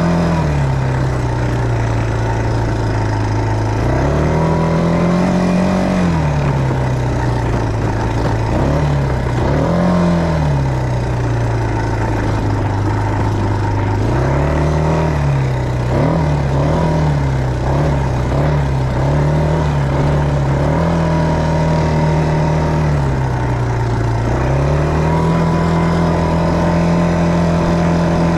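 ATV (quad bike) engine heard from the rider's seat, its pitch rising and falling as the throttle is opened and eased, with a run of quick ups and downs around the middle.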